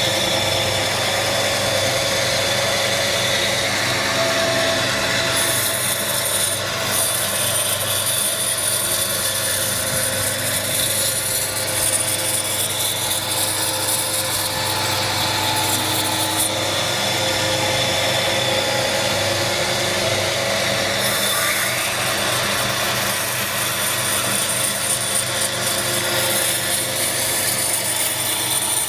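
Power tool cutting or shaping wood, running steadily. A high whine comes in about five seconds in, drops out around sixteen seconds and returns around twenty-one seconds.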